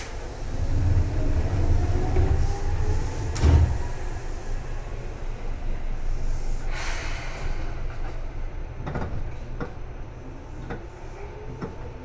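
Interior running sound of a Seibu 2000-series electric train: the traction motors' tones rise in pitch as the train gathers speed. Heavy thuds come in the first few seconds, a short hiss comes around the middle, and the wheels click over rail joints toward the end.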